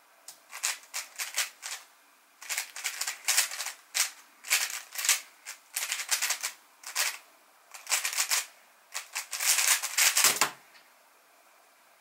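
MoYu WRM v9 Maglev speedcube being turned at speed: rapid bursts of plastic clicking and clacking broken by short pauses, ending with a thump about ten seconds in.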